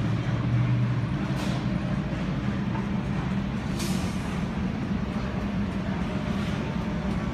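Street traffic: a steady low engine rumble, with two short hisses about a second and a half and four seconds in.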